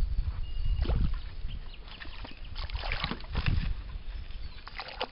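A hooked Australian bass splashing at the water surface beside a boat as it is played in, in irregular bursts about a second in, around the middle and near the end. A low rumble sits under the first second.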